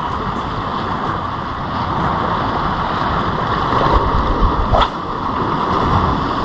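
Steady wind and sea noise on the microphone, with a brief rising swish about five seconds in.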